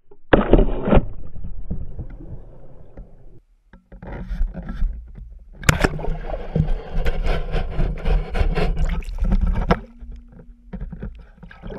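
Water splashing and sloshing close to a GoPro in shallow surf while gigging. The choppiest part, with many sharp knocks and splashes, comes in the middle.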